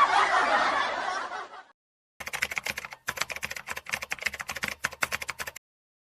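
People laughing, fading out over the first second and a half. After a short gap comes about three seconds of rapid clicking that stops abruptly.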